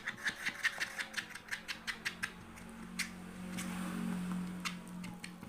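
A stirrer working thick, sticky slime in a container, giving a quick run of sharp clicks and taps, about five or six a second, that thins out about two seconds in. A steady low hum runs under the later part.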